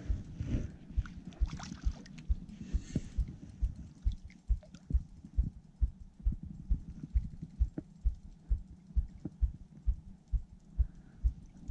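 Walking footsteps: dull low thuds in a steady rhythm, about two a second.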